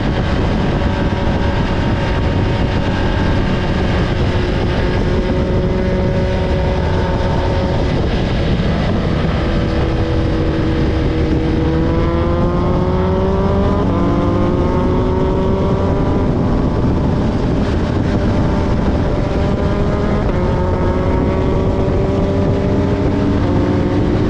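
A motor vehicle's engine running under way, its pitch sagging, then climbing about halfway through before settling, over a heavy low rumble.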